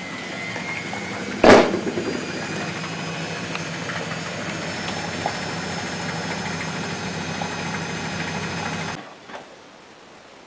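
Miele Hydromatic W734 washing machine running with a steady motor hum, a single sharp knock about a second and a half in. The sound cuts off suddenly near the end.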